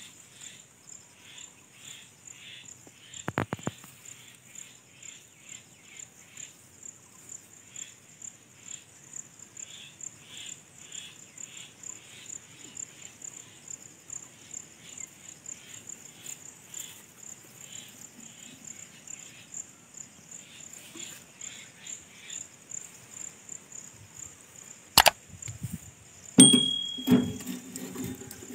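Insects chirping steadily, a high pulsing trill with a slower chirp repeating about twice a second beneath it. A single knock comes a few seconds in. Near the end there is a sharp click, then metal clanks with a brief ringing as a steel pipe is worked onto the power tiller's axle.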